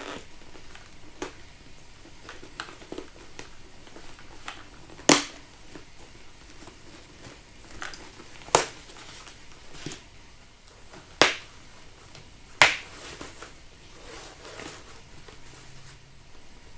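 Hands working inside a Shoei NXR motorcycle helmet to fit an intercom microphone: faint rustling of the padding with scattered small ticks and four sharp clicks, the first about five seconds in and the last near thirteen seconds.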